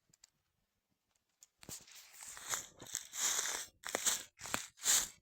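Irregular bursts of dry crackling and crunching, starting about one and a half seconds in and loudest near the end.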